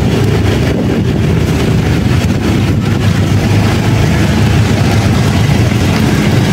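Small motorbike engines running steadily at low riding speed, with a steady rush of wind and road noise, heard from a moving motorbike.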